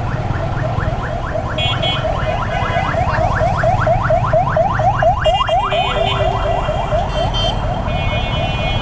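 An electronic alarm or siren sounds a rapid, repeating rising chirp, about six sweeps a second, over the steady rumble of idling engines in stop-and-go traffic. Short high-pitched beeps come in now and then.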